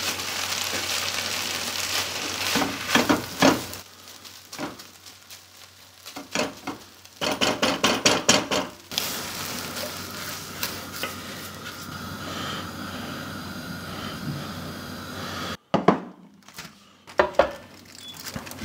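Rice sizzling in a hot pan with a little water added to moisten it, with a utensil scraping and knocking against the pan in bursts, most busily from about six to nine seconds in, as it is stirred and tipped out.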